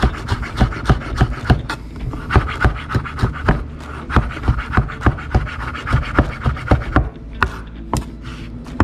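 Kitchen knife chopping raw pompano fillet on a wooden cutting board, mincing it fine: quick sharp taps of the blade on the wood, about four a second, with fewer strokes for a moment near the end.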